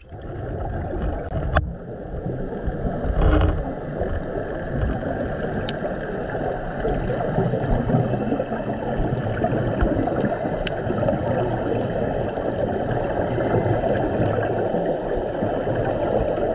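Underwater sound heard through a camera housing: a steady, muffled gurgling rush of scuba divers' exhaled regulator bubbles, with a few sharp clicks and a brief louder burst a little over three seconds in.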